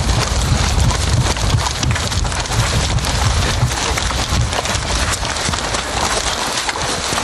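Soldiers running in boots across grass with packs and rifles: footfalls and rattling kit under a constant rushing, crackling noise with a pulsing low rumble.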